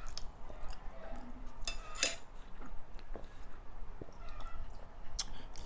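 Quiet close-miked sipping and swallowing from an insulated drink bottle, with scattered small mouth and tableware clicks. A chicken clucks faintly now and then in the background.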